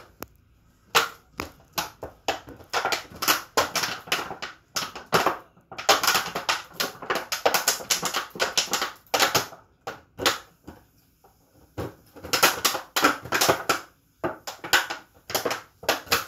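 Jindo dog chewing and crushing an empty plastic water bottle in its mouth: loud crackling and crinkling of the plastic in repeated bouts, with short pauses between them.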